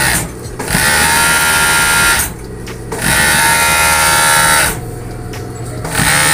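Industrial overlock (serger) sewing machine running at high speed in short bursts as it stitches thin poplin fabric: about three runs of one to two seconds with brief pauses between, the motor holding a steady pitch, and a fourth run starting near the end.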